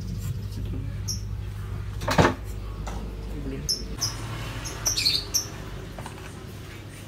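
Scattered clicks and knocks of parts and tools being handled, with one sharp knock about two seconds in and a few short high squeaks, over a steady low hum.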